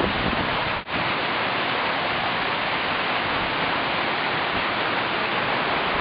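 Floodwater rushing steadily down a street turned into a river, a dense even roar. It breaks off for an instant about a second in.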